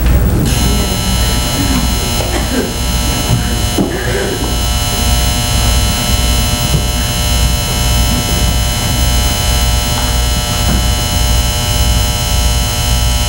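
Loud, steady electrical buzzing hum with a low throb that pulses evenly, about one and a half beats a second. It starts abruptly about half a second in.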